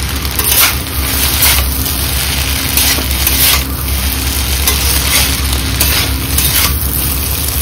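Chowmein noodles and vegetables sizzling in a hot pan over a high flame as they are stirred and tossed, with a stroke of the spatula about once a second.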